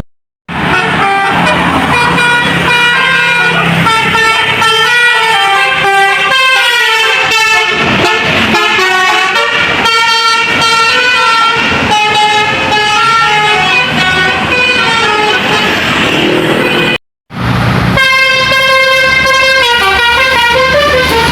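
Multi-tone 'telolet' (basuri) musical air horns on tour buses, playing quick melodies of short stepped notes. The sound cuts out for a moment about four-fifths of the way through, and then another horn melody starts.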